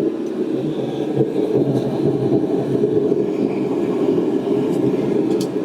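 Forge running: a steady, low rushing noise of its fire and air supply while a piece of 1/4-inch square steel stock heats in it.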